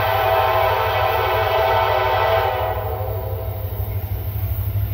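Lead CSX SD70MAC diesel locomotive's horn sounding one long, loud chord as the train approaches, cutting off about two and a half seconds in and fading away, over a steady low rumble.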